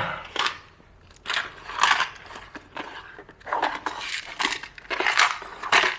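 Rummaging through parts and tools on a workbench while hunting for a small part: a run of irregular rustles, scrapes and knocks of objects being moved.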